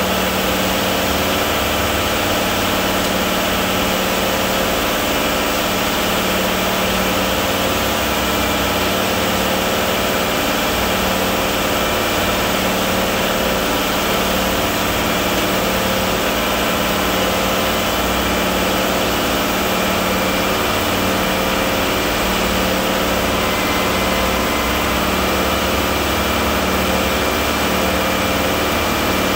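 Steady running of heavy concrete-plant machinery: a ready-mix truck's diesel engine and turning drum beside the batch plant's rotating central mixer drum, an even mechanical drone at a constant level.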